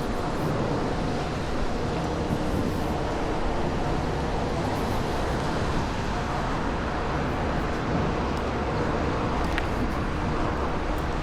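Strong wind blowing across the microphone: a steady, unbroken rush of noise, heaviest in the low end.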